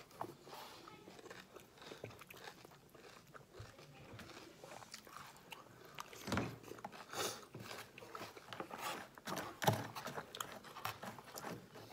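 Close-up chewing and crunching of crunchy cereal with milk by two people: irregular crackly crunches and mouth sounds, with a few louder crunches past the middle.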